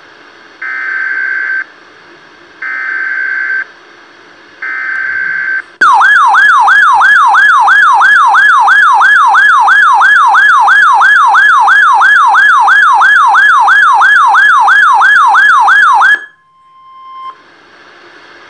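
Three one-second bursts of EAS SAME header data tones, then a RadioShack 12-996 weather radio's alert siren warbling rapidly up and down about three times a second for about ten seconds before cutting off suddenly; faint radio hiss follows.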